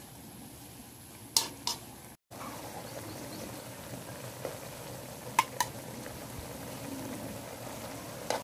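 Chicken liver adobo simmering and sizzling in a large metal pot over a wood fire, with a metal spoon clinking against the pot twice about a second and a half in and twice more about five and a half seconds in, as boiled eggs are stirred into the sauce.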